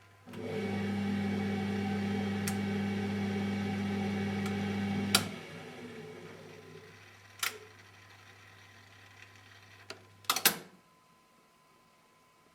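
Siemens Siwamat 960 washing machine's motor turning the drum steadily for about five seconds in the loosening tumble after the final spin, then switching off with a click and running down. A few sharp clicks follow, with a loud double click near the end as the machine's hum stops at the end of the programme.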